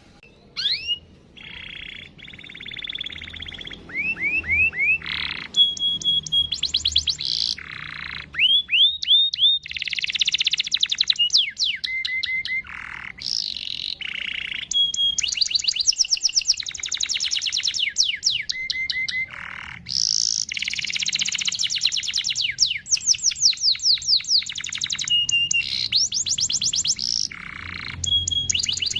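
Domestic canary singing a long, nearly unbroken song of fast trills, rolls and rattles, with runs of quick repeated sweeping notes and only brief pauses.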